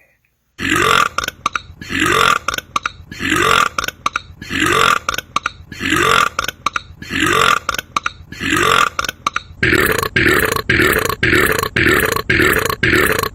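A man burping loudly in a long, evenly spaced series, about one burp a second, each rising in pitch. Near the end they speed up into short burps about three a second.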